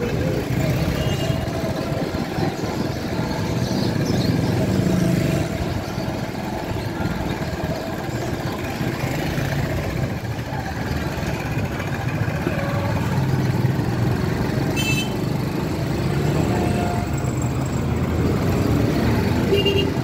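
Busy street traffic: motorcycle and auto-rickshaw engines running and passing close by, over a steady urban din.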